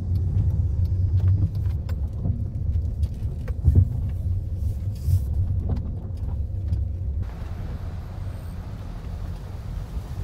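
Car driving, heard from inside the cabin: a heavy low road-and-engine rumble with scattered knocks and rattles. About seven seconds in it gives way to a steady outdoor wind hiss.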